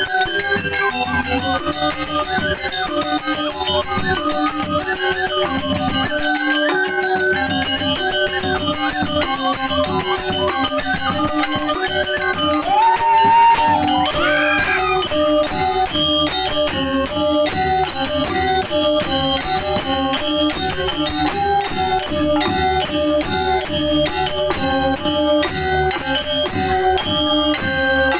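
Balinese gamelan music: a fast, steady run of repeated pitched metallic notes over dense rhythmic percussion, with a short rising tone cutting through about halfway.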